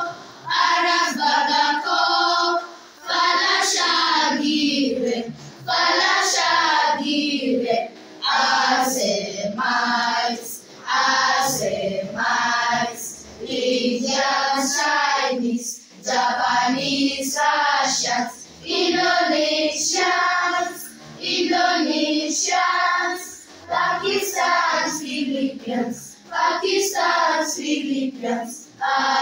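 Voices singing in short phrases, with brief pauses between them.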